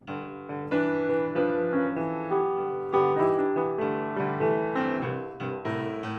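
Solo piano music: a slow melody of struck notes left to ring over sustained chords.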